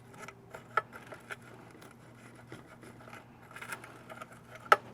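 Scattered small clicks, taps and scrapes of hands handling wires and tools during a soldering job, with one sharp click near the end, over a faint steady hum.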